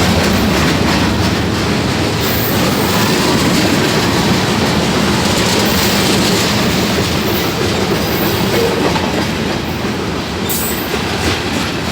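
Union Pacific freight train rolling past, with a steady rumble and the clickety-clack of wheels over the rails.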